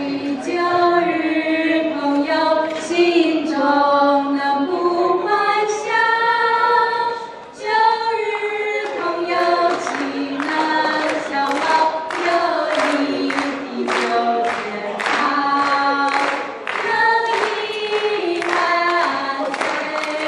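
A small group of voices, women's to the fore, singing a song together in held, changing notes, with a brief break in the singing about seven seconds in.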